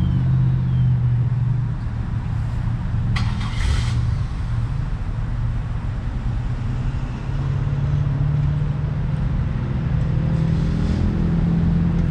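A motor vehicle engine running steadily with a low hum that steps up slightly in pitch later on, and a short hiss about three seconds in.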